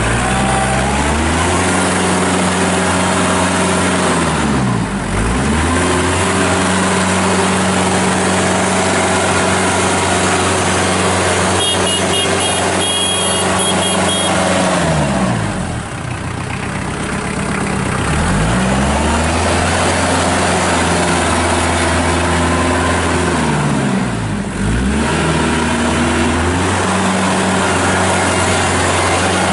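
2009 Kubota L4740 compact tractor's four-cylinder diesel engine running as the tractor is driven about. Its revs drop away and pick back up three times, about 5, 16 and 24 seconds in, as the auto throttle follows the hydrostatic drive pedal.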